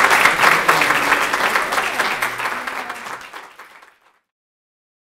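Audience applauding, a dense patter of many hands clapping that fades away about four seconds in.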